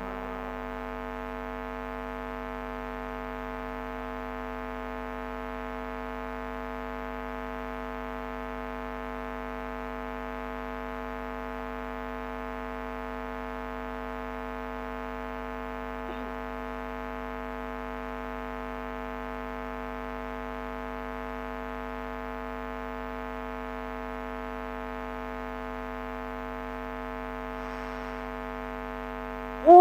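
Steady electrical hum from the sound system, made of several fixed tones that hold unchanged, with a faint tick about halfway through.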